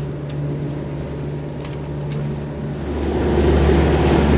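Catamaran's diesel engine running steadily as a low hum while motor-sailing with no wind. About three seconds in, a louder low rushing sound builds over it.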